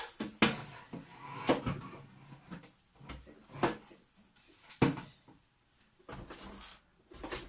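Hard plastic parts of a cereal dispenser being handled: several sharp knocks and clicks spread out over the seconds, with light rustling between them.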